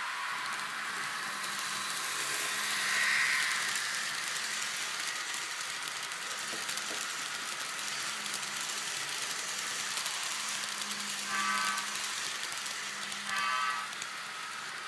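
N scale EMD E8 model diesel locomotive's sound decoder giving two short horn blasts, about two seconds apart, near the end. Under them is a steady hiss from the model train running on the track, swelling about three seconds in.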